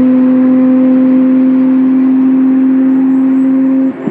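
March 85G race car's Porsche Type 962/70 turbocharged 2.9-litre flat-six at full throttle, its exhaust note loud and held at one steady pitch. The note cuts off suddenly near the end.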